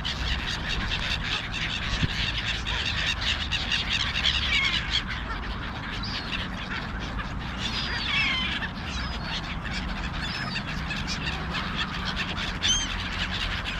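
A frenzied flock of black-headed gulls calling over one another without pause, a dense chatter of harsh cries, with a few louder calls standing out about eight seconds in and near the end.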